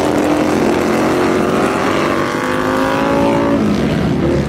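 Small engines of several racing lawn mowers running hard as they pass. One engine note climbs for a second or so, then falls away about three and a half seconds in.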